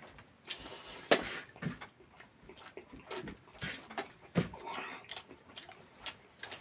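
A person eating chicken curry with rice: irregular chewing and wet mouth clicks.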